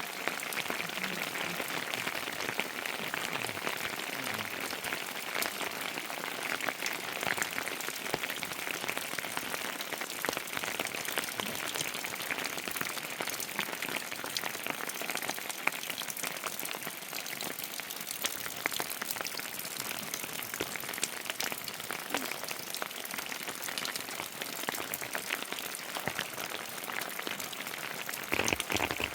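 Steady heavy rain falling, a dense patter of drops striking surfaces.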